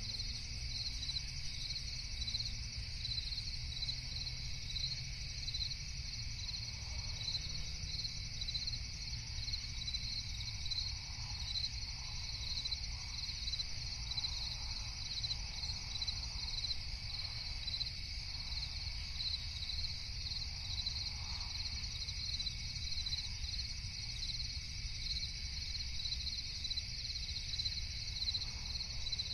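Night-time forest insect chorus: crickets chirping in a steady, even pulse of about two chirps a second, over a constant high hum of insects and a low rumble. Faint, lower-pitched calls come and go through the middle.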